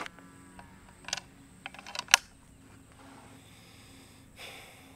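The action of a Western Big Bores Bushbuck 45 big-bore PCP air rifle being worked by hand to load it: a few sharp metallic clicks, the loudest about two seconds in, then a brief soft rustle near the end.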